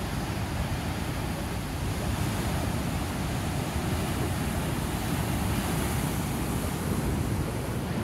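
Steady roar of heavy ocean surf, waves breaking and washing over rocks, with wind buffeting the microphone.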